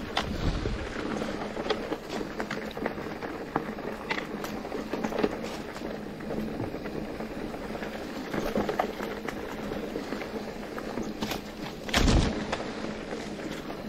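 Mountain bike rolling over a rough trail: continuous tyre and ground noise with frequent small rattles and knocks, and a heavier thump near the end.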